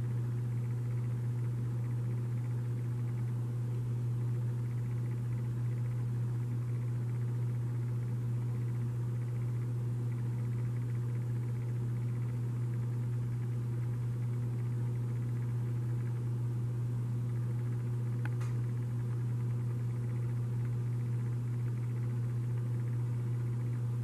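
Steady low hum with fainter higher overtones, and one faint click about eighteen seconds in.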